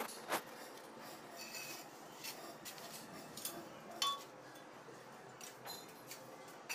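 Ceramic wall tiles clinking and being tapped with a hammer as they are set in mortar: scattered light clinks and knocks, the sharpest about four seconds in with a brief ring.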